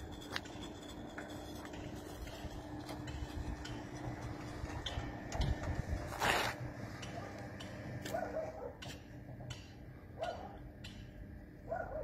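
Sliding-gate gear motor running with a steady hum while it drives a louvered metal gate along its track, stopping about two-thirds of the way through as the gate reaches its post. There is one loud knock about halfway through, and a dog barks a few times near the end.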